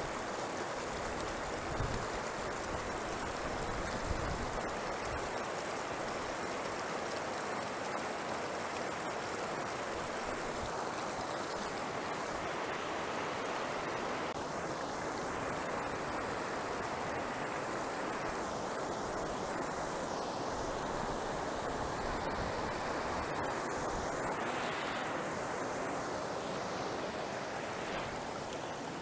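Shallow river rapids rushing over and between boulders: a steady, even rush of water.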